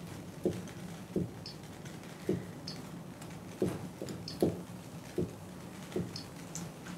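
Handling noise from hands working with small objects at a table: about seven soft knocks and taps at uneven intervals, with a few faint higher clicks, over a low steady hum.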